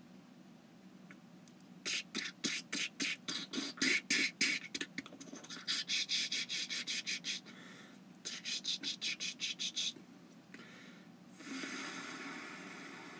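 Mouth-made sound effects: three runs of quick, sharp hissing clicks at about four a second, then a longer hissing whoosh that swells about eleven seconds in and fades.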